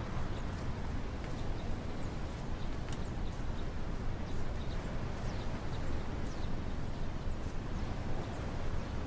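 Outdoor ambience: a steady low rumble with small birds chirping, many short, high chirps scattered throughout.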